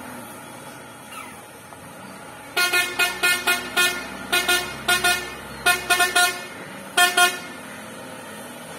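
Truck horn sounding in quick short blasts, two or three at a time, about a dozen in all, starting about two and a half seconds in. Underneath, the low, steady running of the heavy trailer truck's engine.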